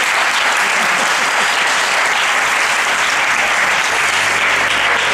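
A roomful of people applauding, dense and steady.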